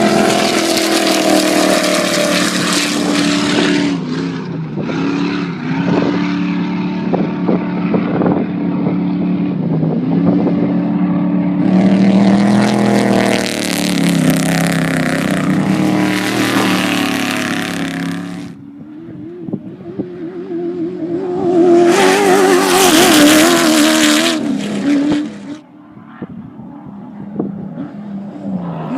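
Off-road race vehicles passing at speed one after another, engines running at high revs with the pitch rising and falling. Loud passes come at the start, about twelve seconds in and about twenty-two seconds in, with a fading engine note between them.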